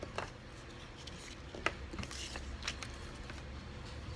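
Small plastic toy building bricks clicking and tapping a few times as they are handled, with a short rustle about halfway, over a low steady hum.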